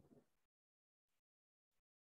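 Near silence: a faint fading tail in the first half second, then nothing.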